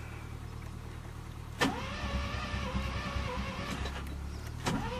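Mazda RX-7's 13B rotary engine cranked by its starter twice, the first about a second and a half in, the second near the end, each starting with a click and going on as a wavering whine, without the engine catching: the owner suspects a fuel problem, with the fuel pump not running. A steady low hum runs underneath.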